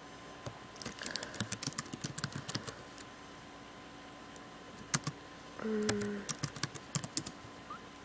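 Typing on a computer keyboard in two short bursts of rapid key clicks, with a single click between them and a brief low tone about six seconds in.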